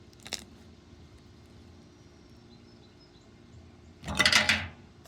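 Slime being handled for ASMR: a small click near the start, then one short squishy burst about four seconds in.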